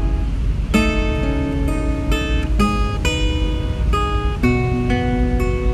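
Acoustic guitar playing chords with no singing, a new chord or note about every half second.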